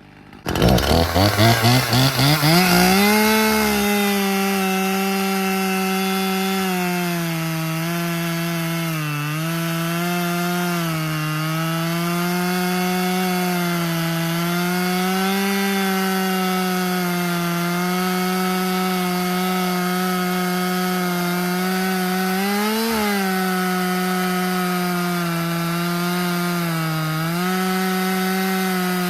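Husqvarna T540XP Mark III top-handle two-stroke chainsaw coming in about half a second in and revving up over a couple of seconds. It then holds near full throttle through a cut in wood, its pitch sagging and recovering a few times as the chain takes the load.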